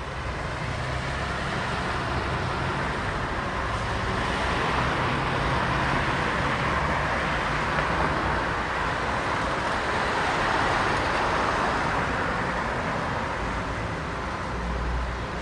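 City street traffic: the steady hiss of cars' tyres and engines going by. It swells a little in the middle as vehicles pass, and a deeper engine rumble comes in near the end.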